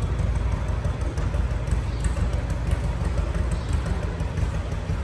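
Steady low rumble of an engine running.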